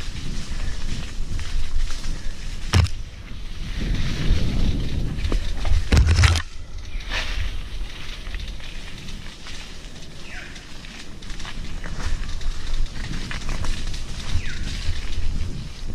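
Mountain bike rolling fast down a wet dirt trail: tyres crunching over leaf litter and the bike rattling over roots and bumps, with low wind rumble on the microphone. Two sharp knocks, about three and six seconds in, are the loudest moments; the ride is quieter after the second.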